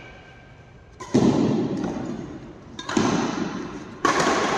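Two loud dull thuds about two seconds apart, each dying away over about a second, then a brighter, noisier burst near the end.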